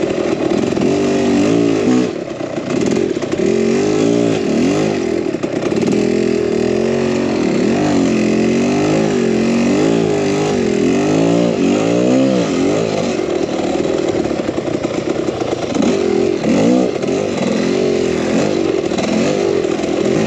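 Two-stroke dirt bike engine under way, its pitch rising and falling over and over as the throttle is opened and closed and the gears change.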